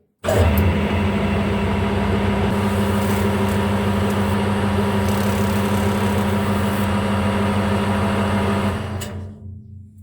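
Cordless drill spinning a polishing tool inside the bore of a Ducati clutch slave cylinder, a steady motor whine at constant speed. It is released near the end and winds down.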